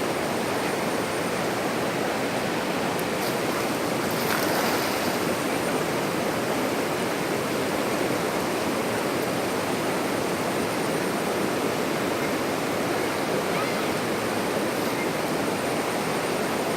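Steady rush of flowing water, an even noise that holds a constant level throughout.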